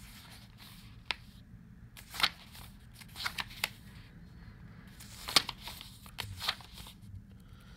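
Pages of a small, thick paperback book being leafed through by hand: a scattering of short papery page flicks at uneven intervals, the loudest about five and a half seconds in.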